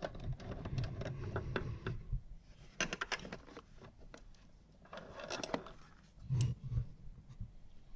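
Hand tools working on bolts in a car engine bay: scattered metallic clicks and scrapes, with clusters of quick clicks about three and five seconds in and a couple of low knocks just after.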